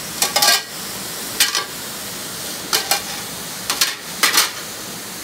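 Ground pork sizzling in a wok over a gas burner, with a metal ladle scraping against the wok in about five short strokes, roughly one a second.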